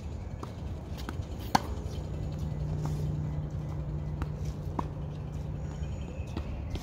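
Tennis ball struck by racquets during a rally: sharp pops about a second apart, the loudest about one and a half seconds in. A low steady hum runs underneath through the middle.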